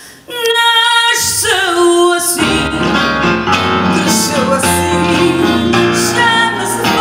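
Live singing with guitar and keyboard accompaniment. After a brief quiet, a held sung note comes in suddenly about a third of a second in, and fuller music joins about two and a half seconds in.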